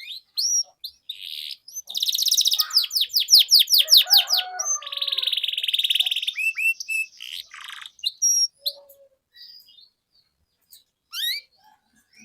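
Domestic canary singing. Quick rising chirps lead into a rapid run of sweeping notes and a fast buzzing trill in the middle, then scattered chirps, a short pause, and a few rising notes near the end.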